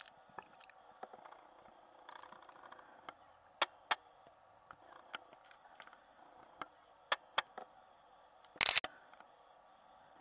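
Camera handling noise: scattered sharp clicks and taps, two of them in quick pairs, over a faint steady hiss. A louder brief rub or knock comes near the end.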